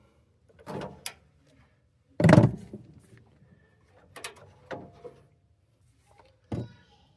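Handling knocks and clicks while thermostat wires are being connected: a heavy thump about two seconds in, then several lighter knocks and a sharper one near the end.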